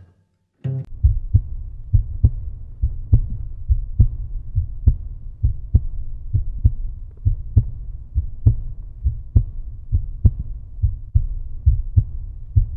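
Background music with a steady deep beat, strong thumps about once a second over a low bass, starting about half a second in.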